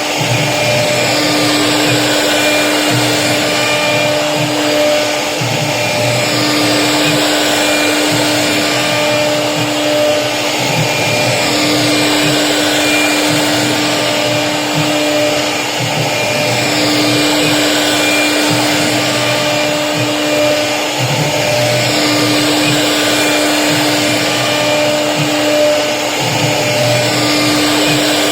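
CNC router spindle cutting HDHMR board, a steady high whirring motor with cutting noise. Its hum drops out briefly and returns about every five seconds as the tool repeats the same carving pass.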